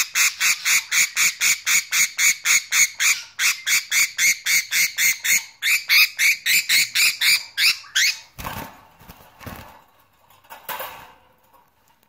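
Budgerigar held in the hand giving a fast, even series of short, sharp calls, about four a second, which stops about eight seconds in; a few soft rustling sounds follow.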